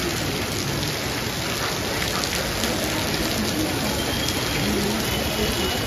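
Heavy rain pouring steadily: a dense, unbroken hiss of a downpour falling on the street and roofs.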